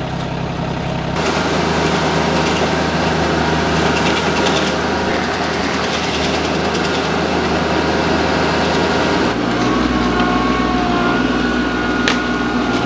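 Compact diesel tractor engine running under load, driving a Woodland Mills WG24 PTO stump grinder whose cutting wheel is chewing through a stump and brush. The sound gets louder and fuller about a second in, and the engine note changes about nine seconds in.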